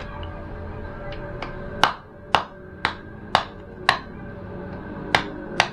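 Knife chopping on a wooden block, cutting the tail tips off freshwater snail shells: seven sharp chops about two a second, starting about two seconds in, with a short pause before the last two.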